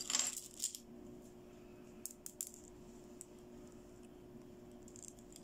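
Small plastic toy bangles handled, clicking and tapping lightly against each other and the fingers. There is a quick flurry of clicks at the start, a few more about two seconds in and a couple near the end.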